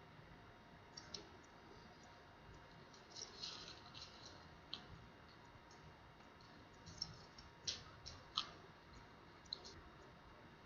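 Small sharp clicks and light scrapes of plastic tablet parts and tools being handled, scattered and irregular, with a few louder clicks about three quarters of the way through.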